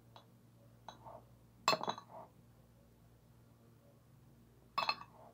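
A fork clinking against a plate: a few light taps, then two louder clinks about three seconds apart.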